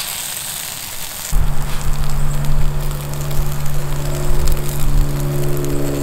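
Chickpea burgers sizzling and crackling on the grates of a portable propane grill. About a second in, background music with long held notes comes in and becomes the loudest sound, with the crackle of the cooking still faintly above it.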